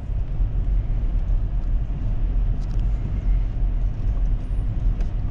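Low, steady rumble of engine and road noise inside a car's cabin as it drives.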